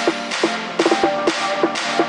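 Background music with a steady beat of short percussion hits and short plucked notes, without the deep kick drum.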